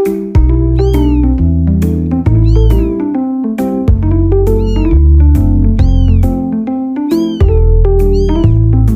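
Cat meows over background music with a steady bass line. Each meow is a rising-then-falling cry, and they come every second or two.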